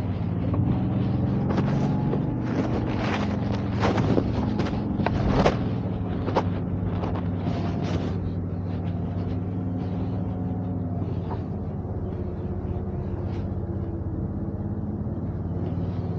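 Toyota Sequoia TRD Pro's twin-turbo V6 hybrid powertrain running at low, steady revs as the SUV crawls over an off-road course. A run of sharp knocks and clicks comes over the first eight seconds or so, then the engine runs on with only the odd click.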